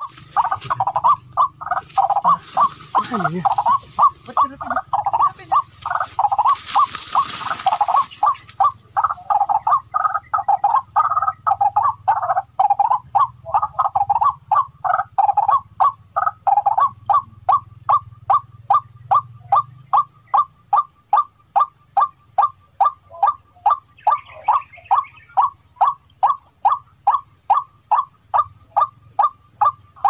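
Waterhen call repeated as a steady series of short notes, about two a second. A broad rushing noise lies over it for the first several seconds.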